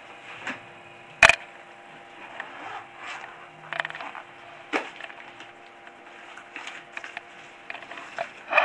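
Scattered clicks and knocks of a small object being handled, with one sharp loud click about a second in.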